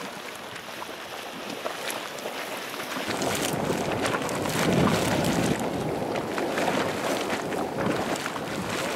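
Dog Bone Geyser in low eruption: hot water surging and splashing up out of its vent, with a continuous gurgling, spattering noise that grows louder about three seconds in.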